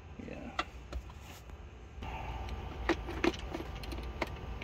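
Handling of a clear plastic parts organizer box: a series of separate sharp clicks and light rattles of the box and the small parts inside it.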